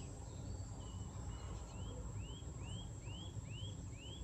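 A bird singing outdoors: a few short flat notes, then a run of six rising whistled notes at about two a second, over a faint steady rumble of open-air ambience.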